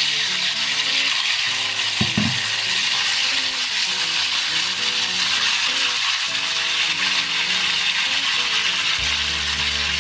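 Marinated chicken pieces frying in hot oil: a loud, steady sizzle and crackle, with a brief knock about two seconds in. Background music plays underneath.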